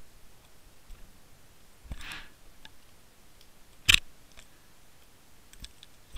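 Underwater sound picked up inside a Water Wolf fishing-line camera's housing as it moves through seaweed near the bottom: scattered faint clicks, a brief scraping hiss about two seconds in, and one sharp knock at about four seconds.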